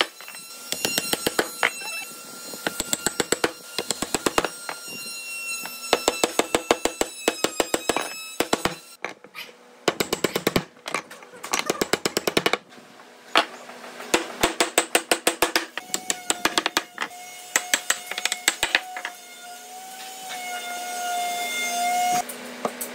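Rapid runs of sharp knocks, a dozen or so at a time with short breaks between, as tenoned wooden slats and rails are knocked together into their mortises, over light background music.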